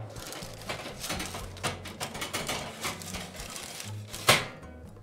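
A baking tray of cheese straws being loaded into a wall oven: irregular knocks and clatters of metal tray and oven rack, with one loud knock about four seconds in.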